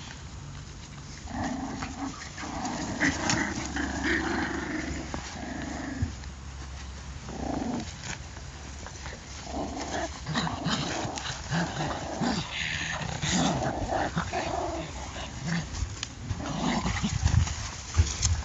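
Patterdale terrier puppies making play growls and yaps in irregular bursts as they tug at a rag toy.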